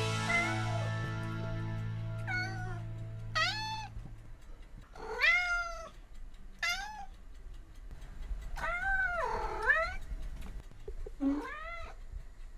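A domestic cat meowing about six times, short arched meows with one longer, drawn-out one, while a held music chord fades out in the first few seconds.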